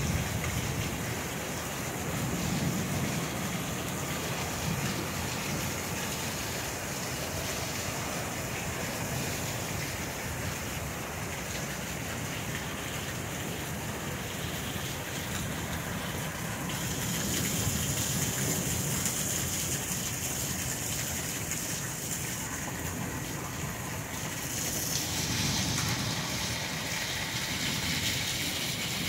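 Monsoon thunderstorm: steady rain and wind, with low rumbles of thunder swelling and fading a few times. The hiss of the rain grows louder past the middle.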